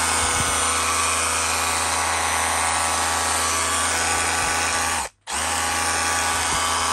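Milwaukee M12 FUEL 2416 cordless SDS Plus rotary hammer running free with no bit in the chuck, a steady motor whine. The whine cuts out briefly about five seconds in as the trigger is released, then starts again.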